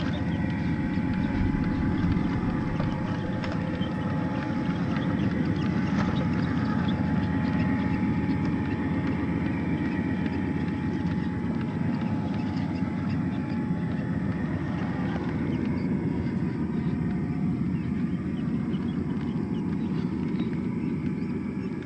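Traxxas TRX-4 1/10-scale crawler's stock electric motor and geared drivetrain running steadily as it crawls through brush: a steady low rumble with a thin, constant whine.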